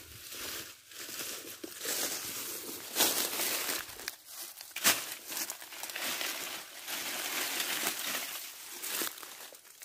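Dry grass, leaves and stalks rustling and crackling as they are pulled up, handled and piled by hand, with sharp snaps about three and five seconds in.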